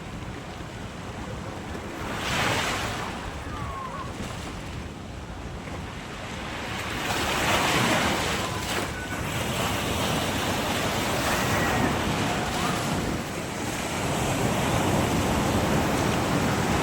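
Sea waves breaking and washing in, with wind buffeting the microphone; the surf swells up louder about two and a half seconds in and again around eight seconds.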